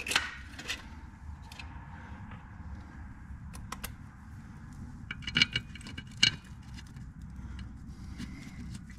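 Light metal clinks and clatter of bolts and hand tools being handled: a few sharp clinks just after the start and a cluster of them about five to six seconds in, over a faint steady low hum.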